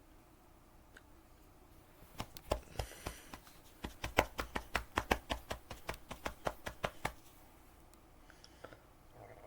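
A run of quick, light clicks and knocks, about three a second, starting about two seconds in and stopping about five seconds later.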